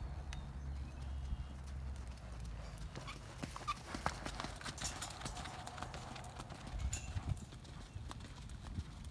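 Hoofbeats of a ridden horse loping around a round pen's dirt footing, an irregular run of soft hoof strikes, over a steady low rumble.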